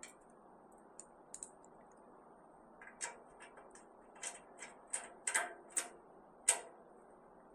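Scattered light clicks and taps of screws and small metal parts being handled while fastening a smoker's leg, with a quick run of clicks in the second half and the loudest click near the end.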